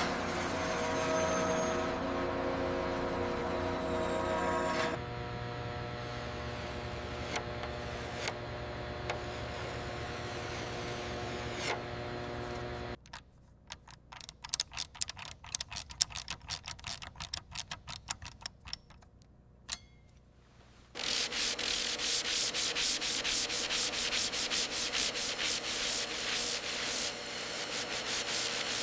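A run of workshop tool sounds. It opens with a steady machine hum, changes to scattered light clicks and taps about halfway through, and ends with rapid, evenly repeated rubbing strokes like sanding.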